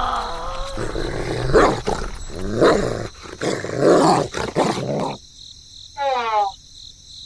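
Animal growls and roars, several in a row, then one short higher call about six seconds in.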